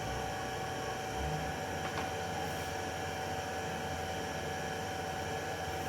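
Steady room hum and hiss with a few steady tones, and a faint click about two seconds in.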